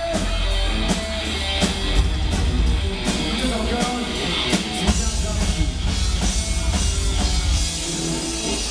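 Live amateur rock band playing a metalcore song: distorted electric guitars over a heavy drum kit with a dense, booming low end and repeated cymbal and snare hits, turning to a washier cymbal texture about halfway through. The recording quality is poor.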